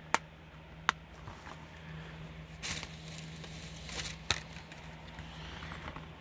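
Plastic Blu-ray cases being handled: a few sharp clicks and taps, about three in all, with short rustles of handling against the bedding in between.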